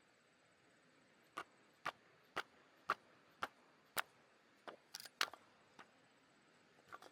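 Firewood being split: a run of sharp, evenly paced strikes about two a second, starting about a second in, then a few looser, irregular knocks.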